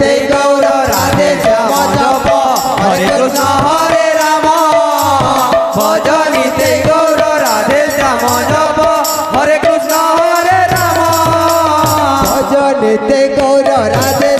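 Odia kirtan music without words: two-headed khol drums and jingling hand percussion keep a steady rhythm under a wavering melody line.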